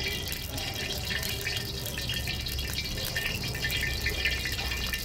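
Hot cooking oil sizzling and crackling in a wok, a dense, steady spatter of tiny pops, with a low steady rumble underneath.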